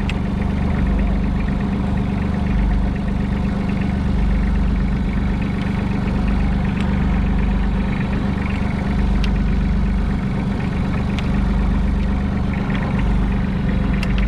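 Fishing boat's engine running steadily with a deep, even hum.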